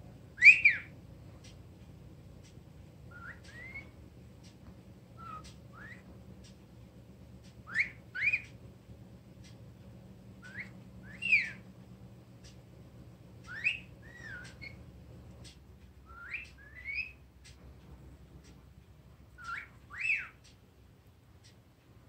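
Blue-headed pionus parrot whistling short two-note phrases, each note a quick rising or falling glide, repeated every two to three seconds; the first phrase is the loudest.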